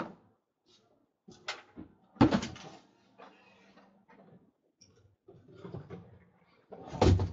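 A few sharp knocks and thumps, the loudest about two seconds in and another near the end, with fainter handling noise between them.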